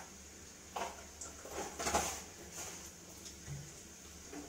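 A few short clinks and scrapes of a metal spoon against a metal cooking pan while stirring dal, the loudest about two seconds in.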